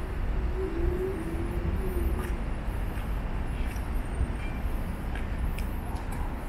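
Steady low rumble of city street traffic, with a short low tone running through the first couple of seconds.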